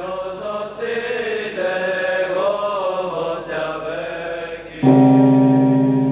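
Liturgical chanting in a slow, wavering melody. About five seconds in, a deep bell is struck and rings on steadily with a slight pulsing.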